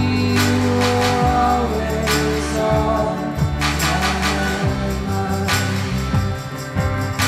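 Indie rock band playing live: bass guitar and cello under a sung melody, with occasional percussion hits.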